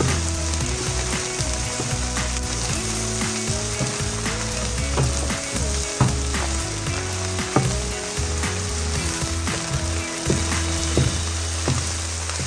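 Fried rice sizzling in a hot pan as it is stirred with a wooden spatula, with scattered clicks and scrapes of the spatula against the pan.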